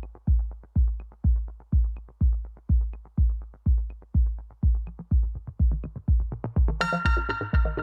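Electronic background music: a deep kick drum beating about twice a second, with synth chords coming in near the end.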